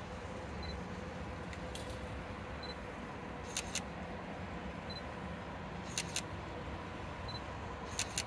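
Train rolling by: a steady low rumble with a sharp double click about every two seconds.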